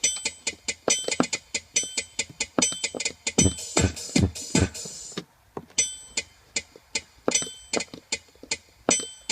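Yamaha PSR-275 keyboard's built-in metronome sounding a steady electronic click beat, with a brighter ringing tone on some beats and a few deeper drum-like thumps about halfway. It breaks off briefly a little past halfway, then starts again.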